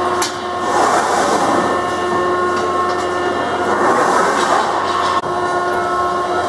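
Schwabe SR 230 straight-ram hydraulic beam press running through its cutting cycle with the urethane belt feed indexing the vinyl. It gives a steady whine of several held tones under a rushing machine noise that swells and fades in waves, with a sharp click just after the start.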